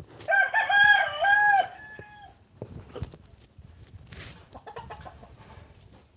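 A rooster crowing once near the start, a single wavering call lasting about two seconds.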